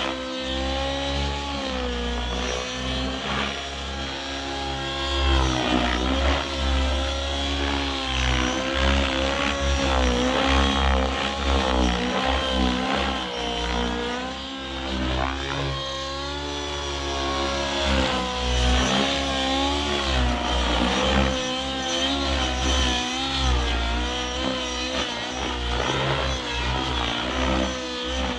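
Two-stroke nitro glow engine (OS 91HZ-R) of an RC helicopter running hard, its pitch swinging up and down again and again as the rotor is loaded and unloaded through aerobatic manoeuvres.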